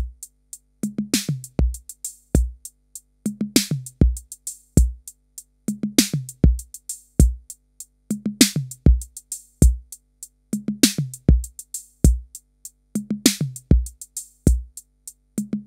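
Drum machine beat with kick, falling-pitch toms and hi-hats, looping about every two and a half seconds. It is played through a DIY analog diode-VCA compressor set to a fast attack, and the compression comes in sharply, so the hits sound snappy.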